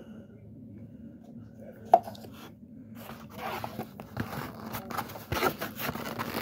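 A sharp click about two seconds in, then dense scraping, creaking and rustling of a white foam takeout container being handled and moved close to the microphone, growing louder toward the end.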